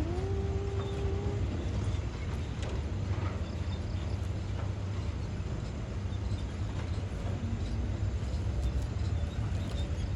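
Heavy diesel engine of construction machinery running steadily with a low rumble, and a short whine near the start that rises and then holds for about a second.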